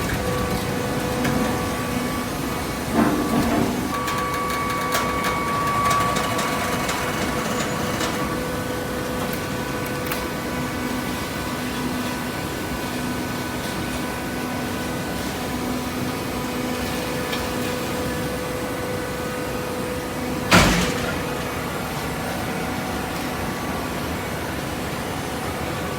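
Conveyor belt and baler machinery running with a steady hum. A few knocks come about three seconds in, and one loud thump about twenty seconds in.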